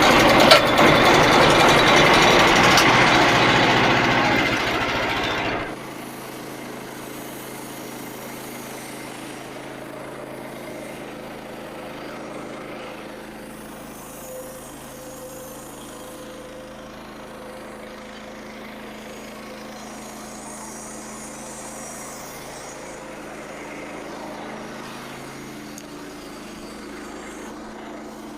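Portable bandsaw sawmill's gas engine running, loud with the blade cutting a red oak log for about the first six seconds, then dropping suddenly to a much quieter steady engine drone.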